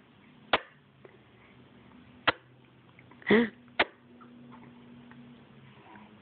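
Three sharp clicks and one short voiced sound, about three seconds in, over a faint steady low hum.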